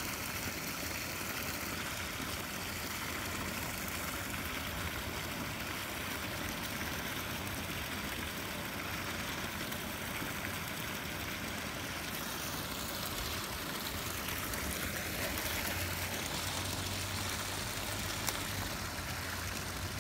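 Creek water pouring over a low concrete spillway: a steady rushing, with a brief click near the end.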